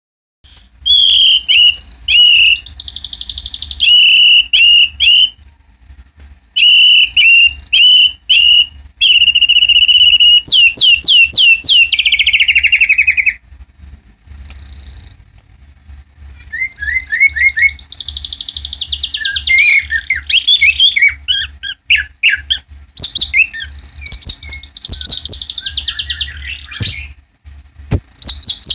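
White-rumped shama (murai batu) singing loudly in rapid, buzzy rattling phrases broken by short pauses. A run of quick falling whistled notes comes about ten seconds in, and varied whistled notes follow in the second half.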